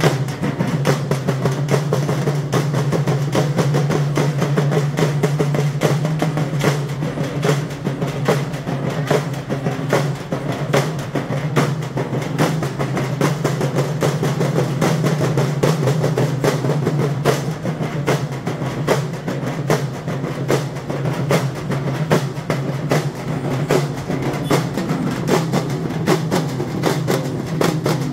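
A group of dhol drums, large two-headed barrel drums, beaten with sticks in a fast, continuous rhythm of many strokes a second, with a steady low boom underneath.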